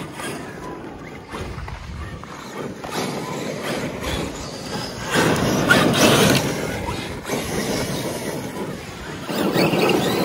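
Electric RC monster trucks, among them a Traxxas X-Maxx, driving and sliding on loose dirt, tyres spinning and spraying gravel, with uneven surges of noise, loudest a little past halfway.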